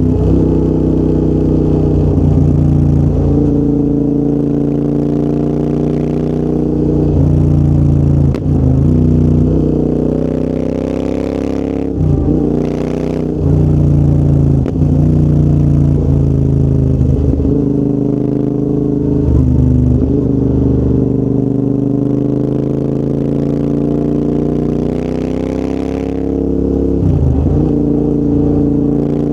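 Royal Enfield Interceptor 650's parallel-twin engine breathing through a full TEC exhaust system while riding, the note mostly steady with slow rises and falls in pitch. The sound drops away briefly several times.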